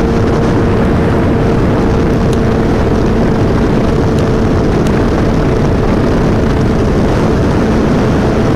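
Wind rushing over the microphone on a moving Suzuki Hayabusa, with the bike's inline-four engine humming at a steady pitch underneath; the engine note weakens into the wind about halfway through.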